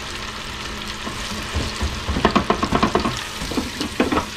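Breaded mullet pieces sizzling and crackling in hot oil in an electric deep fryer, the frying loudest as the wire basket is lifted out, with a sharp metal clink about four seconds in as the basket is set on the rim to drain.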